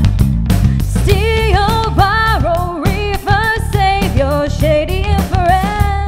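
Live band playing a song: a female lead vocal comes in about a second in over drum kit with cymbals, electric guitar and bass guitar.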